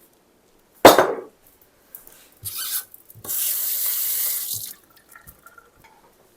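Kitchen sink faucet turned on briefly, then running steadily for about a second and a half and shut off, as a hand is rinsed under it. A sharp knock about a second in is the loudest sound.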